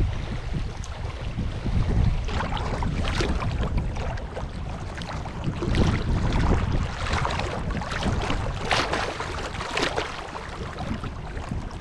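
Wind buffeting the microphone with a heavy low rumble, over lake water splashing and lapping against a canoe, swelling and easing several times.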